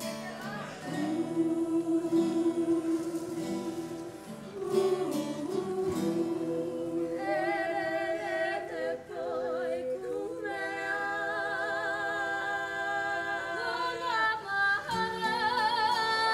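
Kapa haka group singing a poi song in unison, in Māori. They hold long notes, stepping up in pitch and growing louder about seven and ten seconds in, with the held notes wavering in vibrato.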